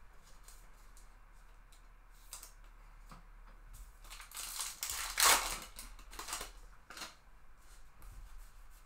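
Baseball trading cards being handled and shuffled by hand: light card rustles and clicks, with a louder rustling swish about five seconds in and two smaller ones after it.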